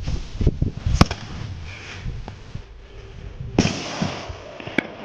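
Double-bang firecracker (erti jiao) going off: a sharp crack about a second in, then a bigger bang with a lingering echo at about three and a half seconds, and another short crack near the end.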